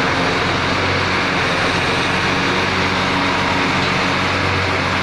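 Heavy truck engine running steadily, powering the truck-mounted knuckle-boom crane while kerbstones are offloaded.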